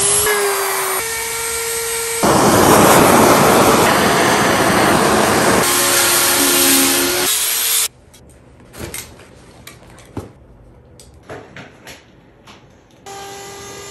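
Handheld electric grinder shaping and sanding a wooden eagle carving: a motor whine that shifts in pitch over a rasping grind. About eight seconds in it stops abruptly, leaving quiet scrapes and taps, and a fainter motor whine starts again near the end.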